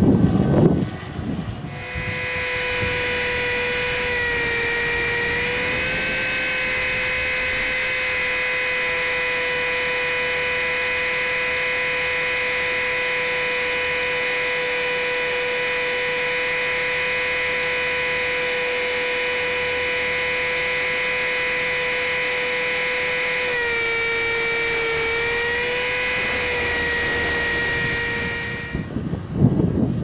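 CopterX 500 electric RC helicopter's motor and drivetrain whining steadily, heard from a camera mounted on the helicopter. The pitch dips briefly twice, about four seconds in and again near the end. Gusty wind buffets the microphone for about the first second.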